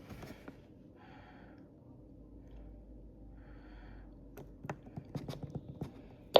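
Quiet stretch with a faint low hum and two soft hissing puffs, then a quick run of small sharp clicks over the last two seconds.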